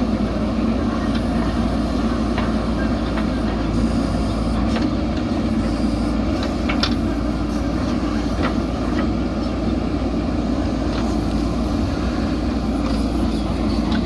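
Diesel engine of a JCB 3DX backhoe loader running steadily at work, with a few faint clicks or knocks over it.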